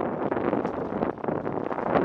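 Wind buffeting a helmet-mounted camera's microphone as a mountain bike descends a gravel trail at speed, with the tyres crunching over loose gravel and many quick rattles from the bike.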